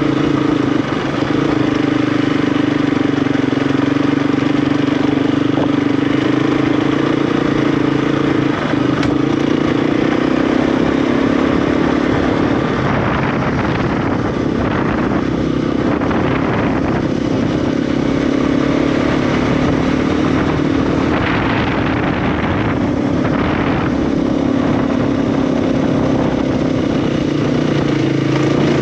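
KTM 350 EXC dual-sport motorcycle's single-cylinder four-stroke engine running under way at a fairly steady speed, its note rising and falling a little with the throttle, over steady wind and road noise.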